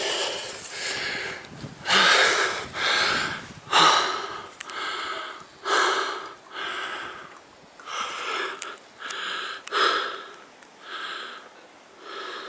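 Heavy, rapid breathing close to the microphone, about one breath a second: a hiker panting from the exertion of climbing uphill.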